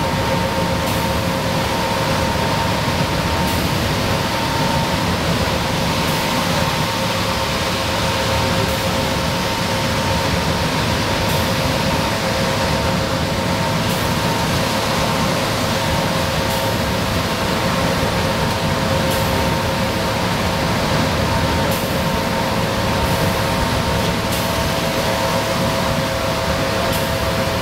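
Interior sound of a 1994 Nova Bus Classic cruising at steady highway speed: its Detroit Diesel 6V92TA two-stroke V6 turbo diesel runs steadily under a hiss of tyres on wet pavement, with a steady whine. Faint ticks come every two to three seconds, roughly in time with the windshield wipers.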